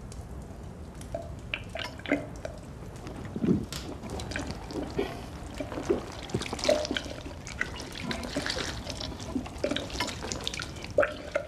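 A man gulping and slurping liquid from a drinking horn in long, irregular swallows, with liquid dribbling.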